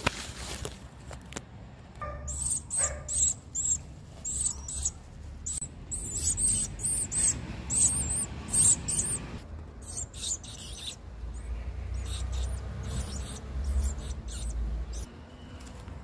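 Nestlings begging: a rapid run of short, high, thin chirps, several a second, that dies away about eleven seconds in. A low rumble follows near the end.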